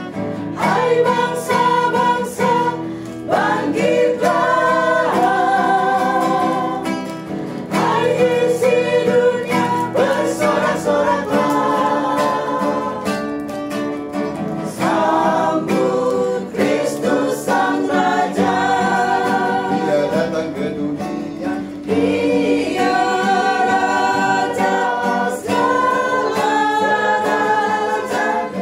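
A small group of women singing a song together, accompanied by an acoustic guitar.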